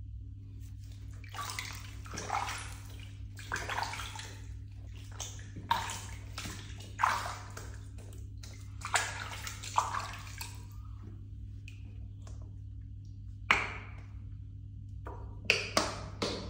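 Bath water splashing and sloshing in a plastic tub as hands scoop it and pour it over a cat's fur, in a series of short splashes from about a second in.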